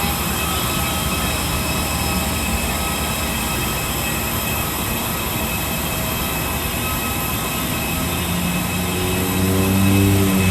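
Steady mechanical rumble and hiss of an airport arrival area, with faint constant tones. A low pitched drone swells in about eight seconds in and grows louder.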